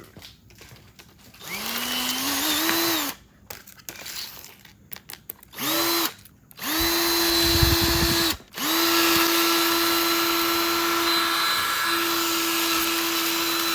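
Cordless drill whining as it is started and stopped several times: first a slow rise in pitch, then a few short blips, then a long steady run at full speed. About halfway through there is a rough grinding for about a second as the bit bites into the iPhone.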